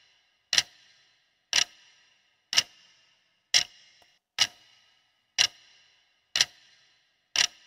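Clock-style ticking sound effect of a quiz countdown timer: eight sharp ticks, about one a second, each with a brief ring.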